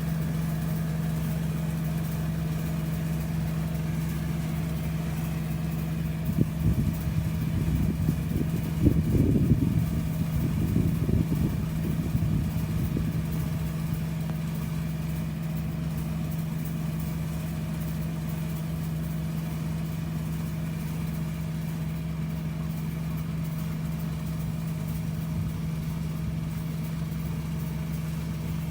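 Engine of a rice-harvesting machine running steadily at one speed, a constant hum with no change in pitch. Between about 6 and 13 seconds in, a louder, uneven low rumble is laid over it.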